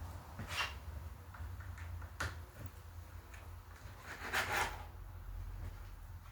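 A few short knocks and scrapes of parts being handled over a low steady hum. The third, about four seconds in, is the longest and loudest.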